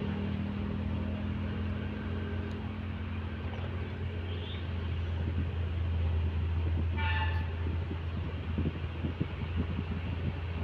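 Heavy earthmoving machinery's diesel engine running with a steady low drone. About seven seconds in there is a brief high squeal, followed by a series of irregular clanks.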